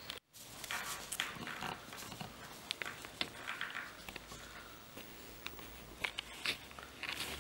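Small handling noises of fingers working a thin steel linkage wire and tiny fittings: scattered light clicks and rustles, with a brief dropout just after the start.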